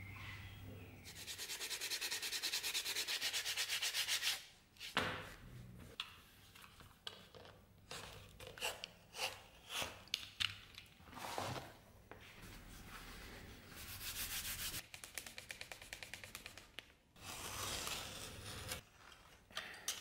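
Snap-off utility knife blade drawn through thick leather on a plastic cutting board: rasping cuts in a long run near the start and two shorter runs near the end, with scattered scrapes and knocks from the leather being handled in between.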